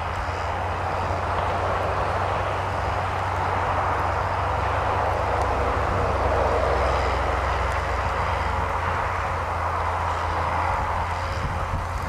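New Holland T7060 tractor's six-cylinder diesel engine running steadily under load while pulling a mounted plough through the soil. It grows a little louder as it nears, peaking about six or seven seconds in.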